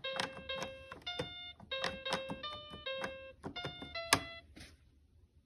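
Electronic alphabet cube toy playing a short tune of about ten beeping notes at changing pitches, most notes starting with a sharp click. The tune ends a little before the last second.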